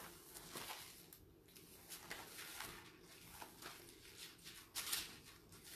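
Soft rustles of Bible pages being turned to find a passage, a few faint paper sounds in a row with the loudest about five seconds in.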